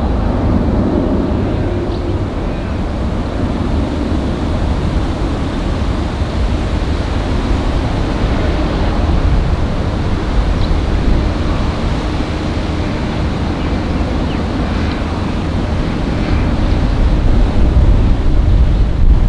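Steady low jet rumble from a Boeing 747-8F freighter's four GEnx engines taking off, growing louder near the end, with wind buffeting the microphone.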